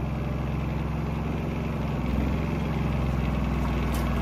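Predator 3500 inverter generator's single-cylinder engine running steadily. About two seconds in, the engine note grows louder as a heat lamp is plugged in and the generator takes up the load.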